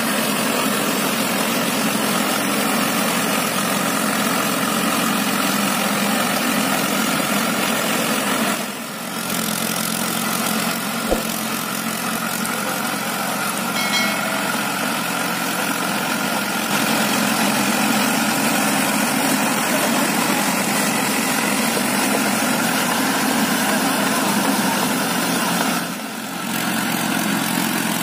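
Mahindra Arjun 555 DI tractor's four-cylinder diesel engine running steadily as the tractor works through deep mud, dipping briefly twice.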